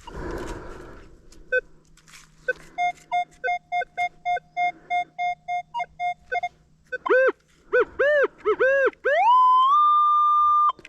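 Metal detector signalling on a buried target: a run of short, evenly spaced beeps on one pitch, then several warbling tones that swoop up and down in pitch. About nine seconds in, a tone glides upward and holds as a steady high tone.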